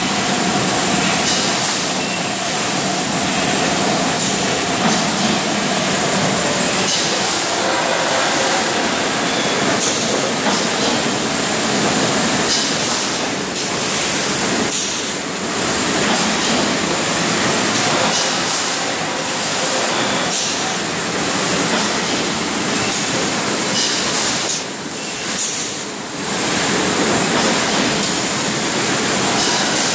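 Rotary rinsing and filling machine of an automatic PET water bottling line running, with a steady hiss of water spraying into and out of the bottles; the sound dips briefly about 25 seconds in.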